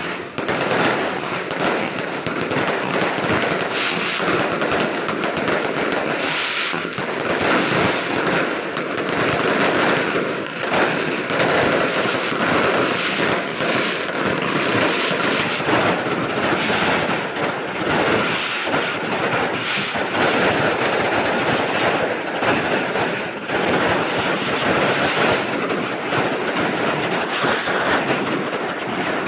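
A continuous, rapid barrage of bangs and crackles from fireworks and firecrackers going off together. These are aerial fireworks that have toppled over and are bursting at street level instead of in the sky.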